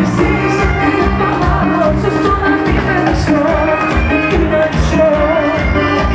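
Live band music with a steady beat, bass and drums, and a voice singing the melody.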